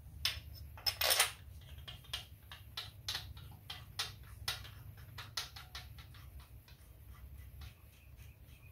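Irregular small metallic clicks and taps as a bolt is worked in by hand on the intermediate-shaft bracket of a Honda K-series engine, its threads freshly sprayed with penetrant because it was binding. There is one louder, longer noise about a second in, over a steady low hum.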